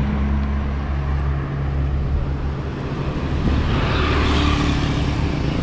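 Road traffic heard from a moving bicycle: the steady engine hum of a car and motorbikes close by, over a haze of wind and road noise. A motorbike comes up alongside about four seconds in, bringing a louder rush of noise.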